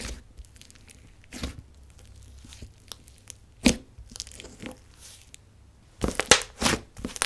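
Fingers pressing and poking an airy, clay-heavy slime in a plastic tub, giving scattered soft pops and crackles, with a quicker run of pops near the end.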